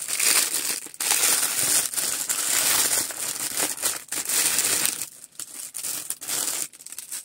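Plastic packaging bag crinkling and rustling as it is handled, loud and continuous for about five seconds, then in shorter, quieter bursts.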